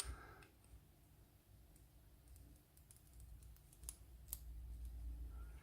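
Faint, scattered clicks of small metal lock parts being handled as the plug is worked out of a pin-tumbler lock cylinder with a key and follower, with a couple of sharper clicks about four seconds in over a low hum.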